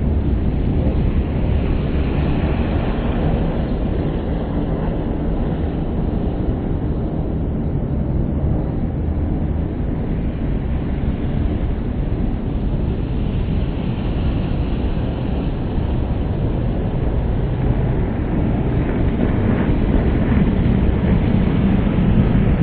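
Steady low rumble of road traffic, growing louder near the end as a car passes close by.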